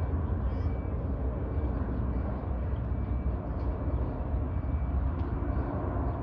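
Jet airliner engines rumbling steadily overhead, mostly low in pitch.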